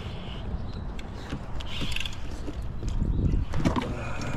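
Fishing reel cranking with irregular mechanical clicks as a hooked bass is reeled in to the kayak, over a low rumble; the clicks grow busier and louder near the end.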